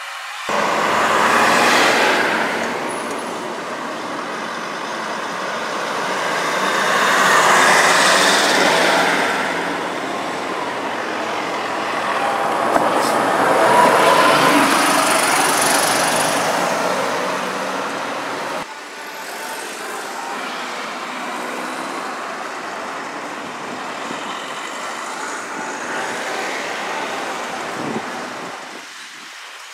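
City buses and other road traffic driving past close by: engine and tyre noise swells and fades as each vehicle passes, loudest about two seconds in, around eight seconds and around fourteen seconds. The sound jumps abruptly about half a second in and again past halfway, then stays quieter and steadier.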